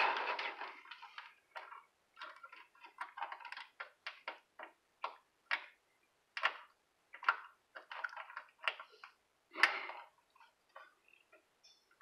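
Irregular light clicks and scrapes of hands and pliers working a steel aileron control cable and its small metal fittings, with a louder rustle in the first second.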